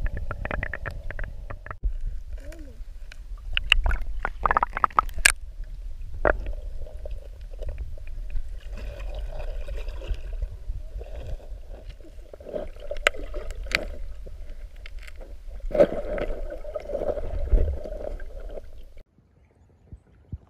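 Muffled underwater sound of lake water moving against a submerged camera: a steady low rumble with bubbling and scattered clicks as a mute swan cygnet paddles at the surface. It drops to near quiet about a second before the end.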